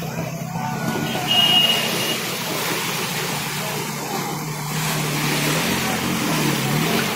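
Vehicle engines running in a flooded street under a steady wash of water noise, with a short high beep about a second and a half in and an engine note that dips and rises again near the end.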